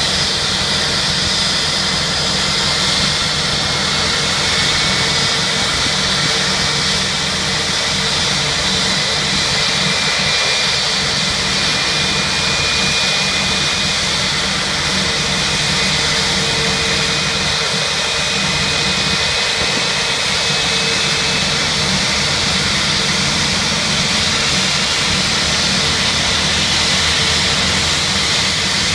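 A jet airliner's turbofan engine running steadily during a ground engine run: a constant high whine over a low rumble.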